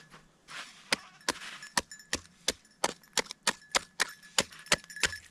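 Fast, sharp strikes of a hand tool chopping a hole through thick, wet lake ice, about four blows a second, starting about a second in. The hole is being hacked out by hand because there is no ice auger.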